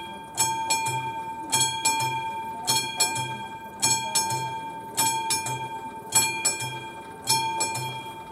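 Level crossing's classic warning bell ringing while the red lights flash, a cluster of quick strikes about every 1.2 seconds with the bell's tone ringing on between them: the crossing is warning of an approaching train.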